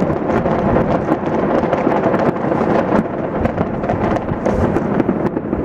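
Dense aerial fireworks barrage: a continuous rumble of overlapping bangs with many sharp crackles throughout.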